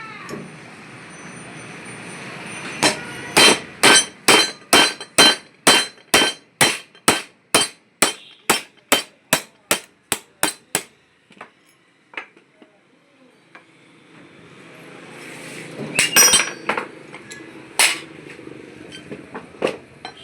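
Hammer striking metal in a steady run of about twenty sharp blows, roughly two and a half a second, then a pause and a few more blows near the end, as the bearing is worked on a car alternator.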